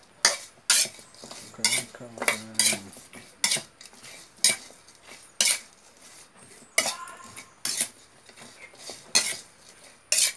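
Metal spoon clanking and scraping against a metal pan as raw chicken feet are tossed with seasoning, with sharp clinks about once a second.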